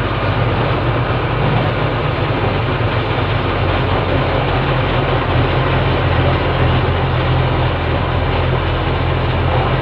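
Lorry engine running steadily with a deep, even hum.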